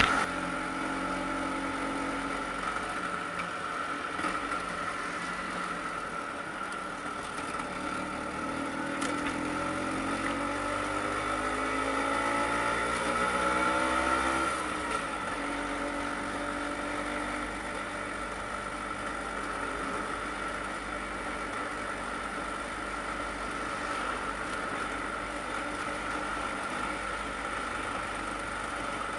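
Vespa PX 150's single-cylinder two-stroke engine running under way. Its pitch climbs steadily for several seconds as it accelerates, drops suddenly about halfway through, then holds steady.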